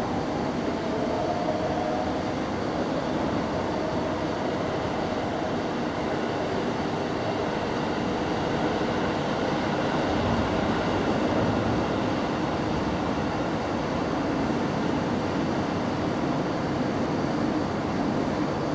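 A steady mechanical hum and rumble with a few faint steady tones, like a machine running continuously.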